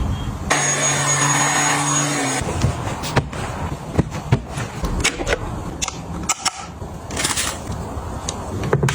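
Clicks and knocks of containers and lids being handled and set down while a fridge is organised, with a steady hum for about two seconds near the start.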